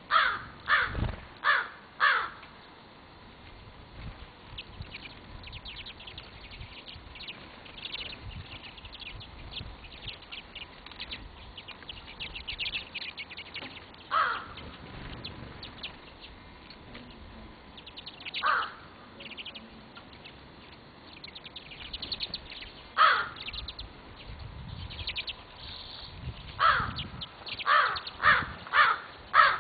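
Crow cawing: four quick caws at the start, single caws spaced several seconds apart, then a closer run of caws near the end. Small birds chirp faintly in between.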